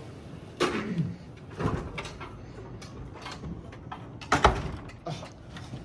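Classroom door knocking and rattling, with one sharp bang about four and a half seconds in: the door being shut and locked on the teacher inside.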